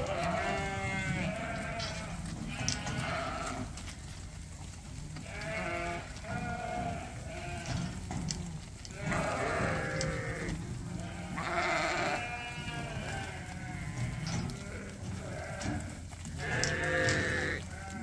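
Sheep bleating repeatedly, with about six bouts of long, wavering calls, some overlapping, over a steady low hum.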